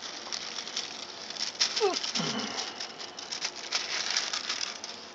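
Thin plastic film being peeled off a microwaved frozen-dinner tray, crinkling and crackling, with a brief falling squeak about two seconds in.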